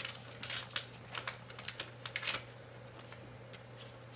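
Paper envelope and greeting card rustling and crinkling as the card is handled and pulled out: a quick run of short, sharp crinkles in the first couple of seconds, then quieter.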